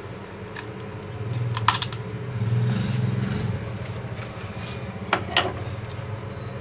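A steady low hum that swells for a couple of seconds, with a few light metallic clinks and rattles.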